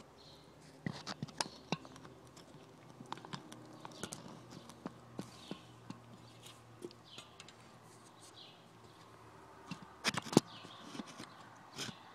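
Irregular clicks and knocks from handling a BMX bike and the camera while filming it close up, with a cluster of louder knocks about ten seconds in.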